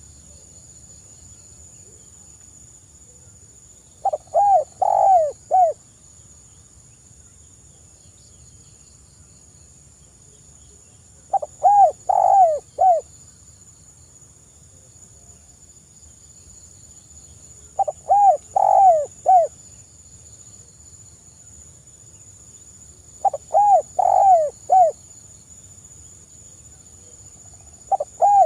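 Spotted dove cooing: a phrase of four to six short, hollow coos, repeated about every six seconds. There are four full phrases, and a fifth begins near the end.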